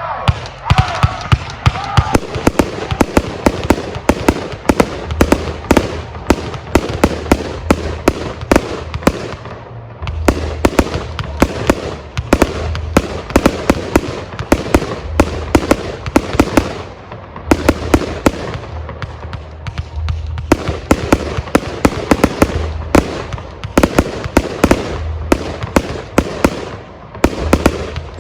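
Aerial fireworks display: a dense, continuous barrage of shells bursting with sharp bangs and crackle over a low rumble, easing briefly a few times before picking up again.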